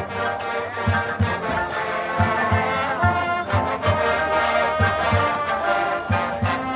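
Marching band brass section playing sustained chords over a steady bass drum beat of about three hits a second.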